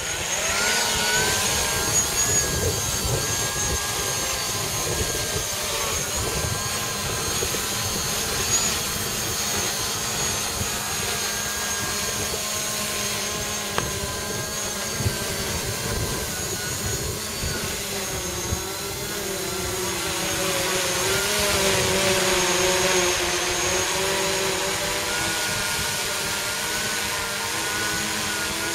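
3D-printed Mavic-clone quadcopter's motors and propellers spinning up and flying: a buzzing whine of several tones that rises at the start, then wavers up and down as the throttle changes.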